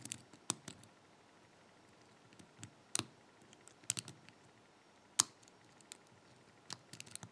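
Scattered small metallic clicks and taps of a lock pick and tension tool working in a 5-pin pin-tumbler padlock, the loudest about five seconds in and a quick run of them near the end.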